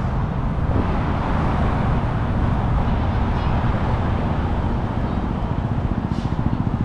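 Steady road traffic: the continuous rumble of cars' tyres and engines going by.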